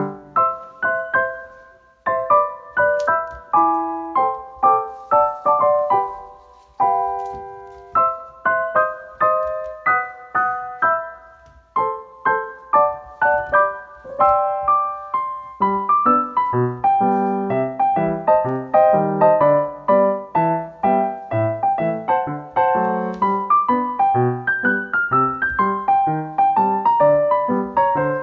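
Solo piano music: a flowing melody of struck notes over a bass line, denser and fuller from about halfway through.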